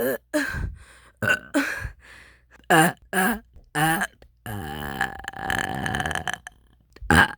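A person burping on purpose, about eight burps in a row. Most are short, and one long, drawn-out burp lasts nearly two seconds about halfway through.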